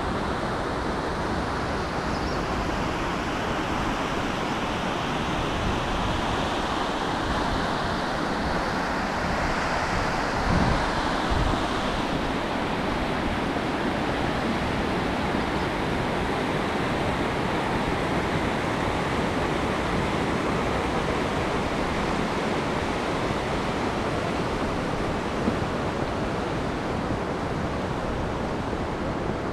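Fast river rapids rushing over rocks: a steady, loud rush of water. A brief low thump comes about ten seconds in.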